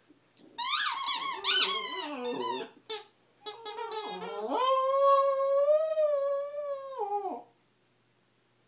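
Rubber chicken dog toy squawking as the dog bites down on it. First comes a run of short, wavering squeals, then about four and a half seconds in a long held squawk lasting nearly three seconds that drops in pitch as the air runs out.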